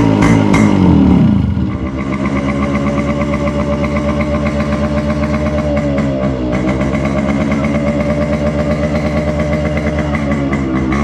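Yamaha RX100's single-cylinder two-stroke engine, freshly started after standing for days: revved once, then idling with an even pulsing beat, with a small blip of the throttle about six and a half seconds in and another rev starting near the end.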